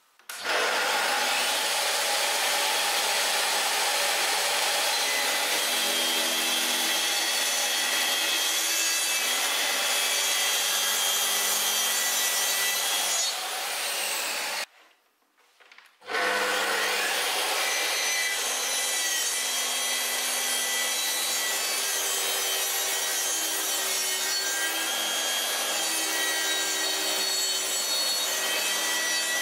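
Makita circular saw running along a guide rail, cutting through a wooden board with a steady whine and rasp. It breaks off for about a second and a half near the middle, then cuts again.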